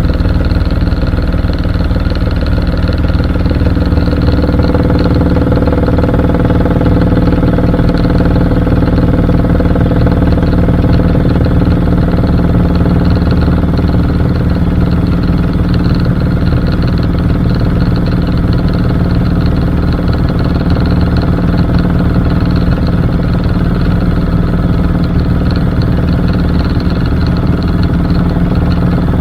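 Helicopter in level flight, heard from on board: a loud, steady drone of rotor and engine with a thin high whine over it, unchanging throughout.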